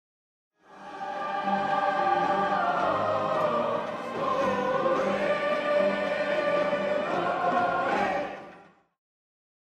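Choral music: a choir singing long held notes, fading in just after the start and fading out near the end.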